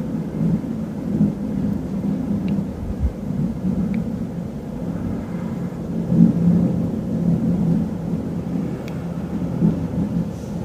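Eurocopter EC145 police helicopter circling, its twin-turbine engines and rotor giving a steady low rumble that swells and ebbs.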